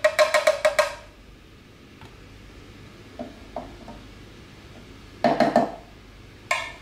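A DeLonghi KG89 grinder's plastic grounds container rapped quickly against the rim of a small glass cup to knock out ground coffee, a fast run of ringing clinks for about the first second. A few faint clicks follow, then another short cluster of knocks about five seconds in and a single knock near the end as the container is handled and set down.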